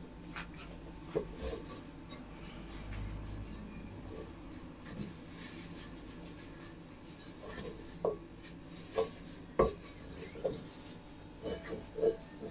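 Pizza base mix and water being stirred in a mixing bowl: continuous scraping and rubbing, with a few sharp knocks against the bowl in the second half, the loudest about two-thirds of the way through.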